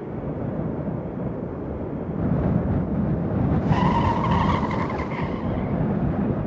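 Airliner landing in a crosswind: a steady low rumble of wind and engine noise. About three and a half seconds in, a pitched squeal starts and lasts about a second and a half.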